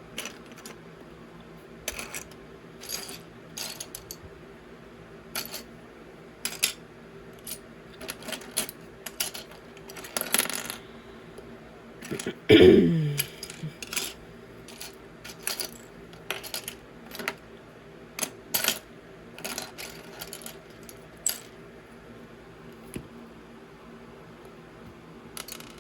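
Small plastic LEGO pieces clicking and clattering on a table as minifigure parts are picked up, set down and snapped together: many sharp, irregular clicks. About halfway through comes one louder, brief sound that falls in pitch.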